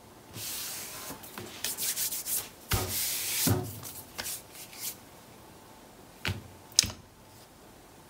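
Hands rubbing and smoothing a sheet of patterned scrapbook paper flat onto card stock, a dry papery swishing in several strokes. Two light taps follow about six and a half seconds in.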